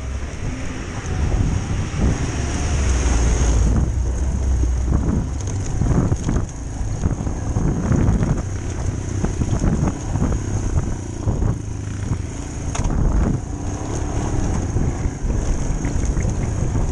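Motorcycle riding over a rough, stony dirt track: its engine under a low wind rumble on the microphone, with many short knocks and rattles from the bike jolting over rocks.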